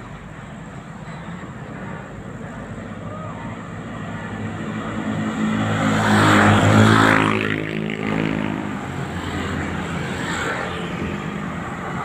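Road traffic passing close: a car and motorbikes go by, their engines building to loudest about six to seven seconds in and then fading, over a steady background of traffic.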